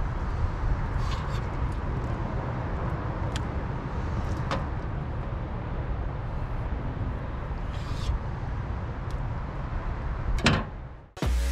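A knife slicing fish fillets on a stainless steel cleaning table, giving a few sharp clicks and taps of the blade on the metal, over a steady low rumble and hiss of outdoor background noise.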